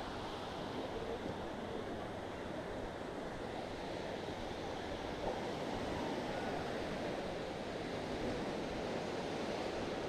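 Steady wash of small sea waves breaking along the shore, a continuous even surf noise.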